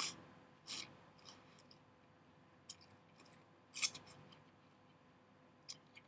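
A person slurping instant cup ramen noodles off chopsticks: three short slurps, the loudest about four seconds in, with a few faint mouth clicks between.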